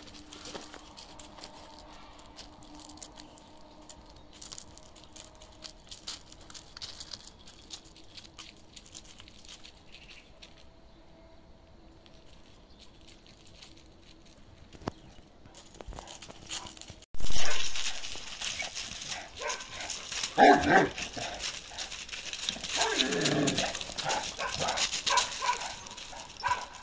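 A faint steady hum for about the first seventeen seconds. Then a sudden change to louder background noise, in which a Kangal shepherd dog barks and gives a longer call that falls in pitch.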